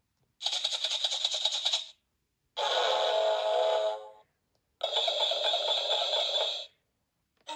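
Three short musical-instrument sound effects played one after another from an electronic children's sound book's buttons, each lasting about a second and a half, with brief silences between them. They are rattly and jangly.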